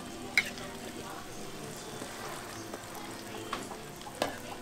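Hotteok (Korean filled pancakes) frying in oil on a flat griddle: a steady sizzle, broken by a few sharp clicks, near the start and again toward the end.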